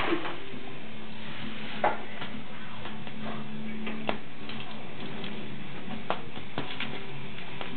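A few light, separate taps and clicks on a tile floor as a lop-eared rabbit pushes and tugs a slipper about with its nose and paws. A low steady hum runs through the first half.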